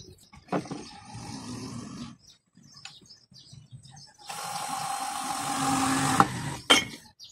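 Cordless drill boring into a laminated board: the motor runs steadily for about two seconds under load, then stops, followed by a sharp click. A shorter, quieter noise comes about a second in.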